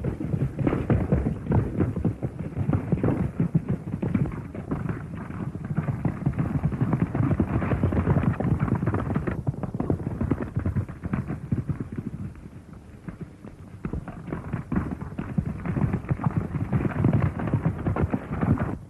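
Hoofbeats of several horses galloping, a dense rapid clatter that eases for a couple of seconds about two-thirds of the way through. It is muffled, as on an old film soundtrack.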